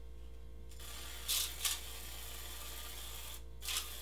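Short puffs of olive oil spray from a refillable pump oil mister: two quick sprays close together about a second in, and another near the end.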